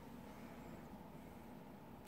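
Near silence: quiet room tone with a faint steady hum.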